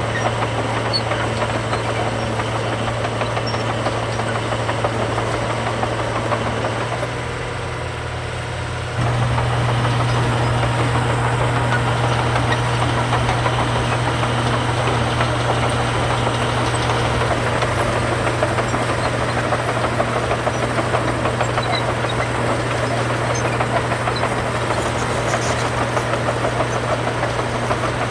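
Heavy diesel engine of earthmoving machinery running steadily with a low, even drone. It eases off briefly about seven seconds in, then comes back louder and holds steady from about nine seconds.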